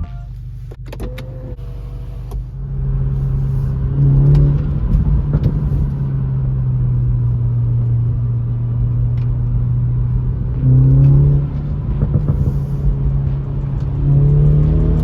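BMW 430i's turbocharged four-cylinder engine idling, revved briefly three times: about four seconds in, about eleven seconds in and near the end. A few clicks come in the first two seconds.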